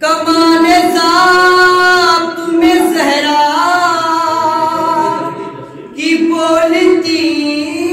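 A man singing Urdu verses unaccompanied in long, drawn-out melodic notes, a manqabat recited in tarannum style through a microphone. The voice breaks off briefly about six seconds in, then takes up the next phrase.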